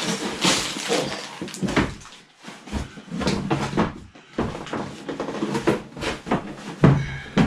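Bags of Lego pieces and the cardboard box being handled: irregular plastic rustling with knocks and thumps, and one heavier thump near the end.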